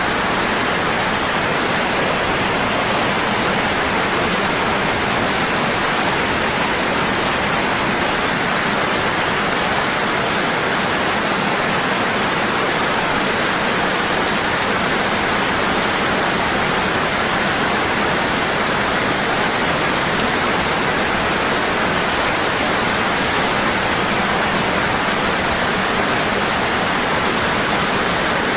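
Waterfall: water falling hard and steady in an unbroken rush.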